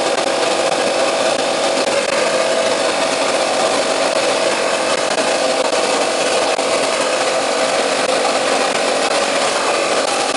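Wet blasting machine spraying abrasive slurry onto a Yamaha TZR250R YPVS exhaust valve, a steady loud hiss with a faint hum from the machine.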